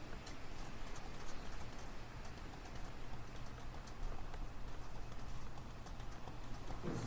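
Library room ambience: a steady low hum under scattered light clicks and taps.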